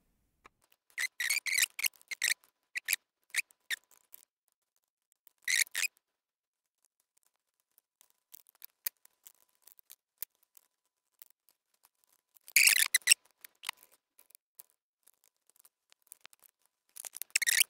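Small plastic and metal laptop parts being handled and fitted by hand during reassembly: scattered light clicks, taps and rustling scrapes in short clusters. The loudest clatter comes about thirteen seconds in, and another starts near the end.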